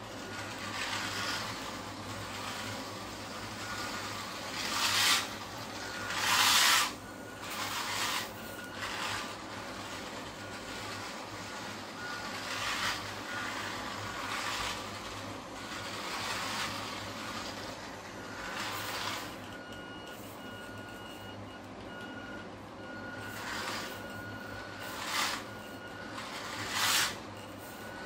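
Small hobby-grade electric drive and 3D-printed gearbox of a converted toy RC car whirring in a dozen or so short bursts of acceleration. It runs on hard plastic wheels over a laminate floor.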